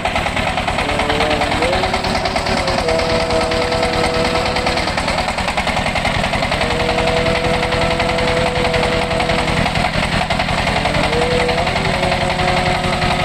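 Stationary diesel engine driving a generator, running steadily with a rapid, even firing beat. It is running a little below rated speed, the generator putting out about 41 to 48 Hz. Over it, a few thin tones shift up and down in pitch several times.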